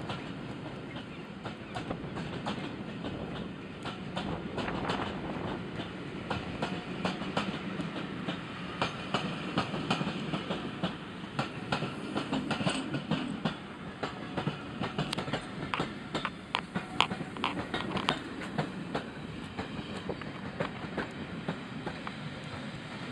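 A rake of passenger coaches rolling past, the wheels clicking and clattering over the rail joints with a continuous rumble underneath.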